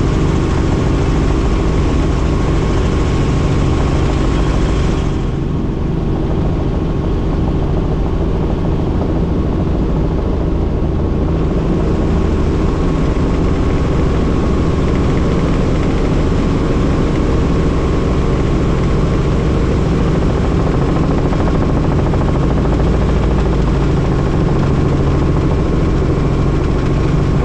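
Small helicopter in flight heard from inside the cabin: a steady drone of engine and rotor with a low hum and a rushing hiss above it. The hiss eases for several seconds about five seconds in.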